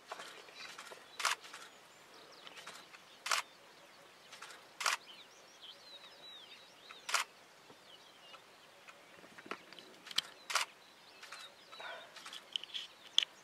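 Wildebeest giving short, sharp alarm snorts at irregular intervals of one to three seconds, with faint bird chirps between them.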